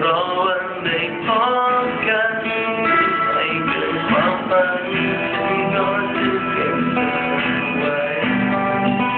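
Instrumental passage of a pop song led by guitar over band backing, with a few gliding, bent notes in the first few seconds.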